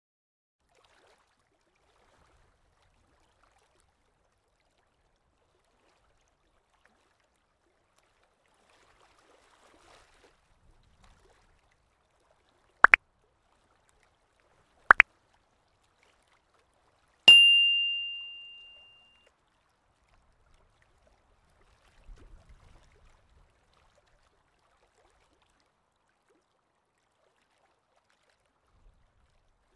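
Two sharp double clicks about two seconds apart, then a single high bell-like ding that rings and fades out over about two seconds; otherwise near silence.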